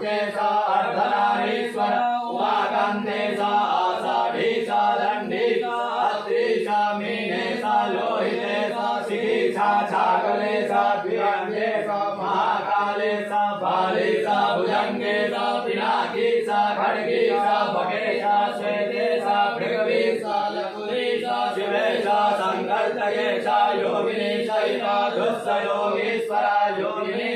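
Hindu devotional chanting, sung over a steady low drone and kept in time by a light regular tick.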